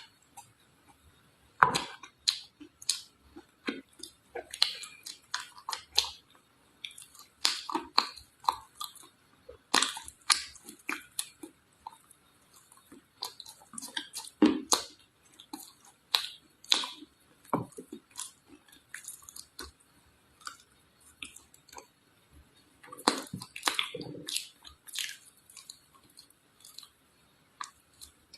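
Dry red clay being bitten and chewed: irregular sharp crunches and crackles, with a couple of quieter pauses.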